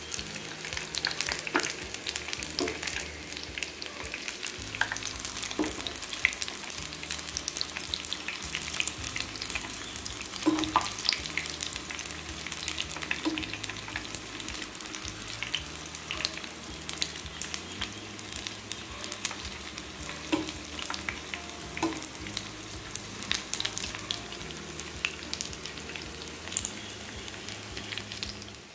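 Breadcrumb-coated brinjal fingers deep-frying in hot oil: a steady sizzle and crackle, with a few light clicks scattered through it.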